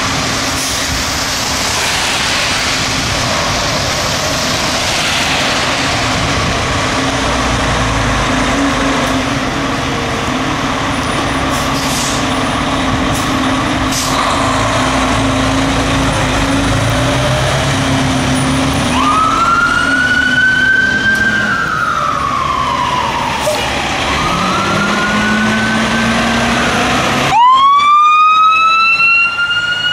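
Fire truck diesel engines running as the apparatus pull out. From a bit past halfway, a mechanical siren (typical of a Federal Q2B) winds up and slowly coasts down, twice. Near the end a louder siren starts winding up sharply.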